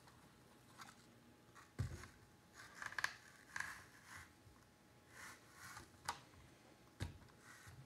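Kitchen knife slicing into a large apple: faint, short scraping cuts through the skin and flesh, with two dull knocks, about two seconds in and again near the end.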